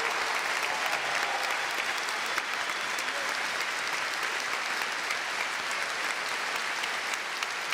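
A large crowd applauding steadily, the dense clapping easing off slightly as it goes on.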